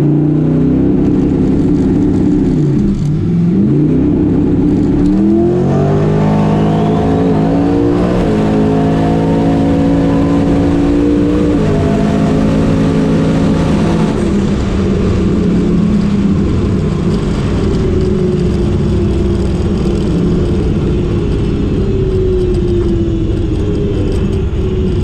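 Twin-turbo 427 cubic-inch LS V8 in a Camaro drag car at full throttle on a drag-strip pass, heard from inside the cabin: the engine climbs in pitch through several gear changes, with a brief dip in revs about three seconds in. About fourteen seconds in it comes off the throttle and winds down, falling steadily in pitch as the car slows.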